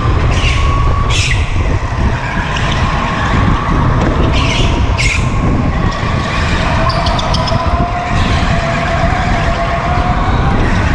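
Go-kart running at speed, heard from on board: a steady whining tone that slowly drifts up and down in pitch over a heavy low rumble. There are several short sharp noises near the start and again about four to five seconds in.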